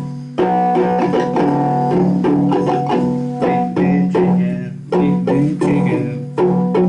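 Instrumental break of a country-style song: plucked guitar notes over a bass line.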